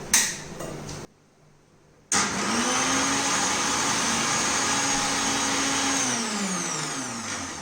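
Electric mixer grinder crushing ginger, black peppercorns and cloves. After a short knock, the motor starts about two seconds in, runs steadily for about four seconds, then winds down with a falling pitch near the end.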